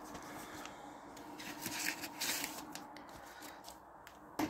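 Faint handling noise of a plastic DVD case being moved by hand: soft rustling with a few light clicks, and one sharper knock near the end.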